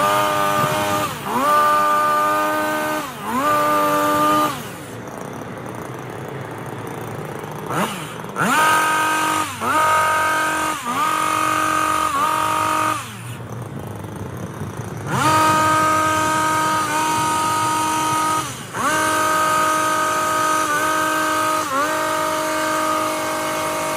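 Stihl HS 82T two-stroke petrol hedge trimmer revving in short repeated bursts as it cuts, dipping briefly between bursts. It drops back to idle twice, about five and thirteen seconds in, and holds nearly steady high revs from about fifteen seconds on.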